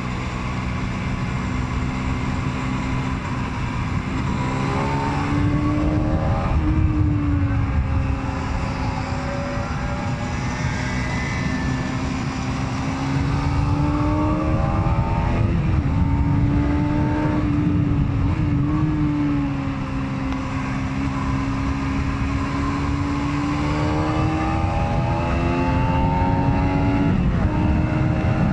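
Aprilia Tuono 125's single-cylinder 125 cc four-stroke engine under way, pulling through the gears: its pitch climbs steadily and falls back at each upshift, several times over, with wind rushing over the microphone underneath.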